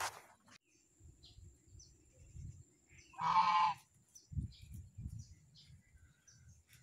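A white domestic goose gives one harsh honk about three seconds in. Faint low knocks follow.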